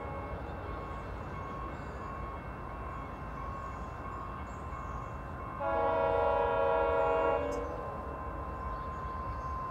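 An approaching train's multi-chime air horn sounds one blast of nearly two seconds about halfway through, over a steady low rumble of the train.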